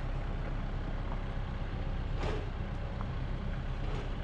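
Boatyard travel lift's diesel engine running steadily with a low, even hum, with a short rushing noise about two seconds in.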